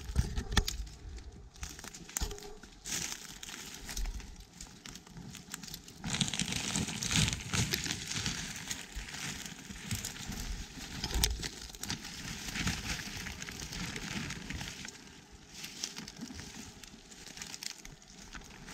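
Dry woodland debris rustling and crackling as it is moved, in scattered bursts at first and then dense and continuous from about six seconds in, easing off near the end.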